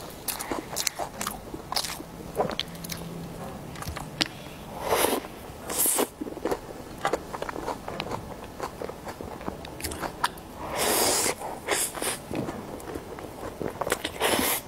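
Close-miked eating of soft cream cake: wet chewing, lip smacks and many small mouth clicks, with a few louder, longer noisy bursts.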